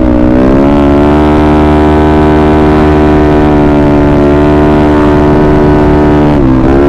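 Yamaha Mio Sporty scooter's single-cylinder four-stroke engine running at high, steady revs at speed. Its pitch dips and climbs back once near the start and again near the end.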